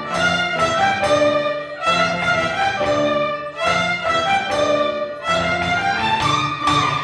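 Orchestral music with violins carrying a melody of short notes in a phrase that repeats about every two seconds.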